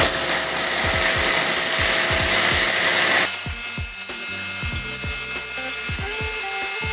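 Cordless pressure washer's water jet spraying with a loud, hissing spray that drops off after about three seconds and continues more weakly, over background music with a steady beat.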